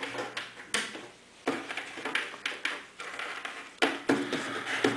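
Irregular knocks, clatters and scrapes of a plastic fingerprint attendance terminal and network cables being handled on a wooden table as a cable is connected, about half a dozen separate sounds.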